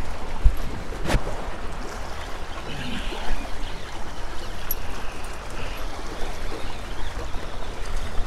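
Small waves lapping and splashing against granite jetty rocks, with a steady low rumble of wind on the microphone. A single sharp click about a second in.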